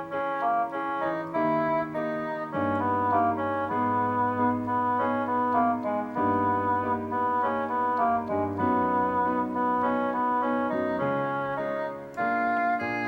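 Electronic keyboard playing a slow single-note melody in held notes over sustained chords and a bass line, in an organ-like tone.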